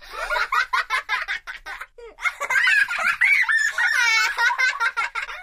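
Young children laughing and giggling in high-pitched voices, with a quick warbling trill of laughter near the end.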